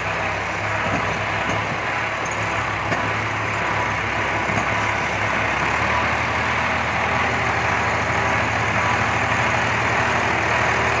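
Powertrac tractor's diesel engine running steadily while pulling a trailer loaded with sacks, growing a little louder in the second half.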